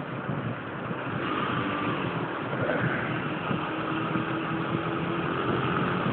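Yamaha Factor 125's single-cylinder four-stroke engine running steadily as the motorcycle rides along, mixed with wind and road noise.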